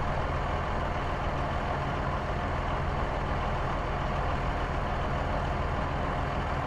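A vehicle engine running steadily, a sound effect for an SUV, with a constant deep hum under an even engine noise that does not change.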